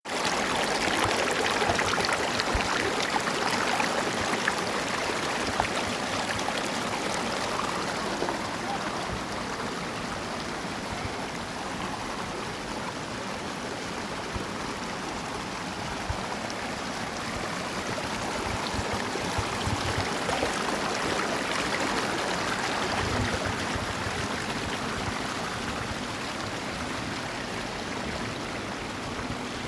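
Water rushing steadily, an even hiss that stays unbroken throughout.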